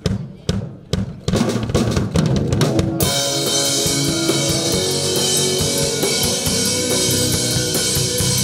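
Live rock band of drum kit, electric guitar and bass guitar playing. Separate drum strokes come about two a second at first, the guitars join about a second in, and the full band with cymbals comes in about three seconds in.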